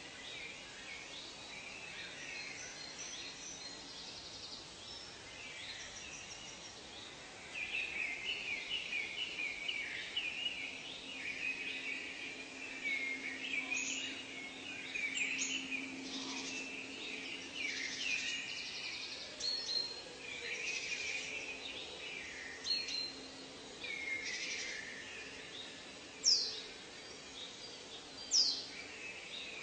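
Several birds calling and singing over a steady background hiss, with overlapping chirps and warbled phrases. The chorus grows busier after the first few seconds. Two loud, sharply falling whistles near the end are the loudest calls.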